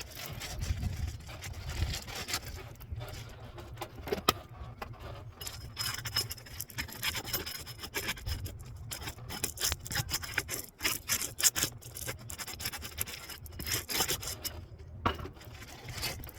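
Scraping and rubbing against asphalt roof shingles, with many short clicks and taps, as shingles are worked loose with a roofing snake and pry bar.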